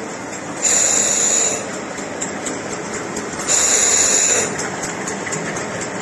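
Rotary vertical ultrasonic vial and ampoule washing machine running with a steady mechanical rattle and faint ticking. About a second in and again about three and a half seconds in, a loud hiss rises for about a second, as the machine's wash or blow-off jets fire in its cycle.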